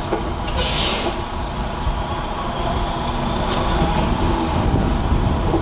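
Log truck's diesel engine running steadily as the truck manoeuvres, with a short burst of air hiss about half a second in.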